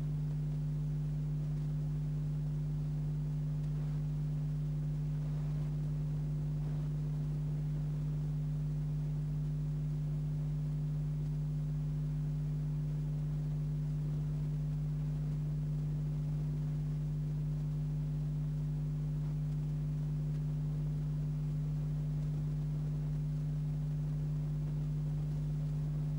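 A steady low hum with fainter overtones above it, holding one pitch and one level without change.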